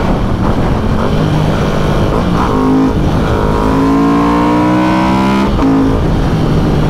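Ducati Hypermotard 1100's air-cooled L-twin engine pulling hard under full throttle: its note rises steadily for about three seconds, with a brief break near the start of the climb, then drops back near the end. Heavy wind rush from highway speed runs underneath.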